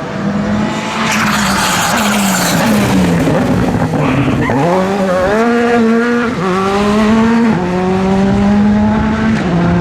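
Rally car engine accelerating hard through the gears, its pitch climbing and then dropping at each of several upshifts. A rush of tyre noise comes about a second in.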